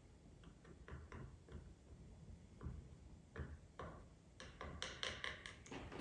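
Palette knife dabbing oil paint onto a stretched canvas: a series of faint, quick taps. They come sparsely at first and bunch together near the end.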